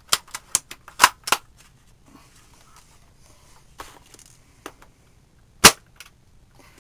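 Well L96 spring-powered bolt-action airsoft rifle being cocked: a quick run of sharp clicks and clacks from the bolt in the first second and a half. About five and a half seconds in comes one loud, sharp shot as a BB is fired through the chronograph.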